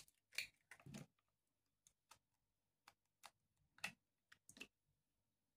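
Two eggs cracked on the rim of a plastic bowl and broken open: a few sharp cracks and shell snaps in the first second, faint small clicks, then another group of cracks about four seconds in.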